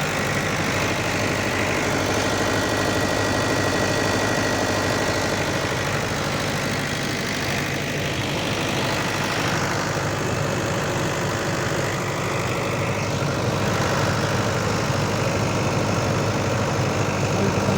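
Mahindra generator's engine running steadily at a constant speed.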